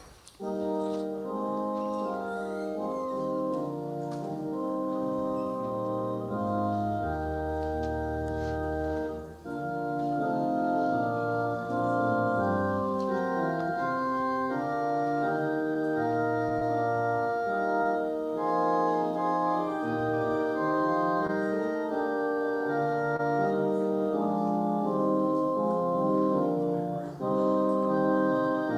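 Organ playing a slow piece in held, sustained chords, starting about half a second in, with deep bass notes entering around a third of the way through.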